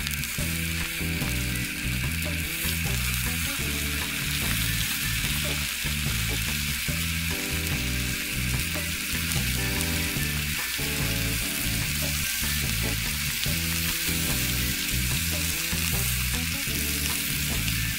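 Sausages sizzling steadily as they fry in a small skillet over a butane jet stove.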